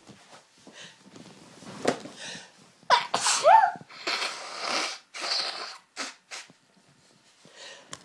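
A woman's hay-fever sneeze fit with half-stifled sneezes: a sharp, stifled sneeze about two seconds in, then a louder, partly voiced sneeze about three seconds in, followed by several breathy bursts of air.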